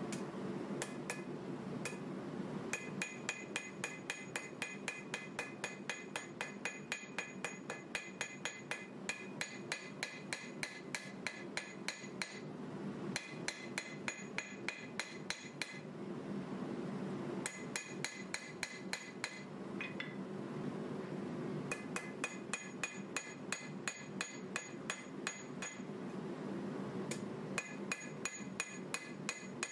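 Hand hammer striking a red-hot 1095 steel drop-point knife blade on an anvil, about four blows a second in runs of several seconds with short pauses between. Each blow has a bright metallic ring, over a steady low hum.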